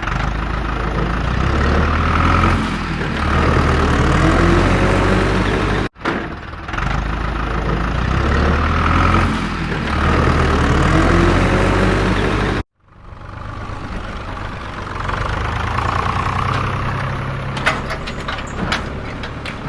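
Tractor engine running, a deep rumble whose pitch shifts up and down in steps, heard in three stretches separated by abrupt cuts about six and thirteen seconds in.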